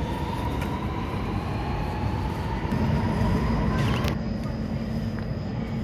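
Sydney Metro Alstom Metropolis train pulling away, its traction motors whining and rising steadily in pitch as it accelerates. The whine cuts off abruptly about four seconds in, leaving a steady low hum.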